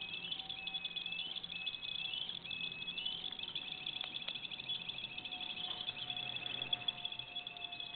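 High electronic chirping tones in a repeating pattern, roughly once a second a held tone that jumps up in pitch, over a fainter steady lower tone.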